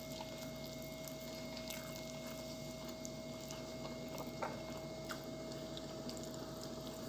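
A person eating with bare hands: faint chewing and wet, squishy mouth sounds with small scattered clicks, the sharpest about four and a half seconds in, over a steady faint tone.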